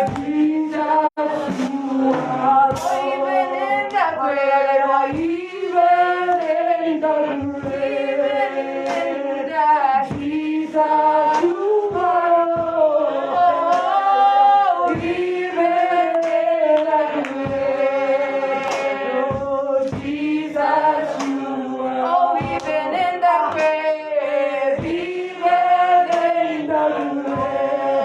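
Worshippers singing a praise song together, several voices at once, with the melody moving steadily throughout.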